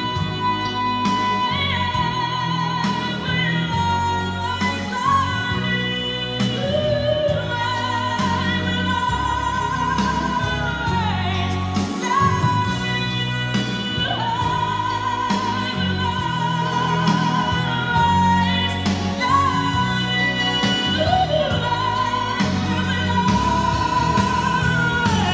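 Vocal music played back through a pair of JBL Professional EON ONE powered PA speakers as the shared test track: long sung notes with vibrato over a steady bass line.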